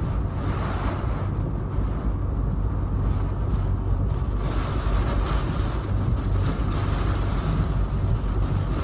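Hurricane-force wind roaring without a break, with a deep rumble beneath a rushing hiss, growing stronger in gusts about halfway through.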